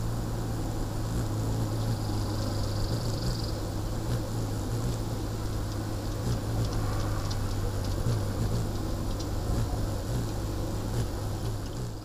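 Hummingbird wings humming steadily as it hovers at a nectar feeder, with scattered faint high chirps and a brief thin high note about two seconds in.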